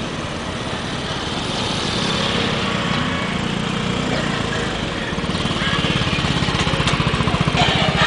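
Small motor scooter engine running steadily at riding pace, its fast even beat growing louder in the second half, under a continuous rush of road noise.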